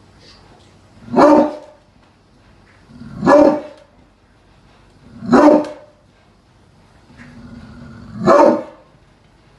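Pitbull barking: four single deep barks, spaced about two to three seconds apart.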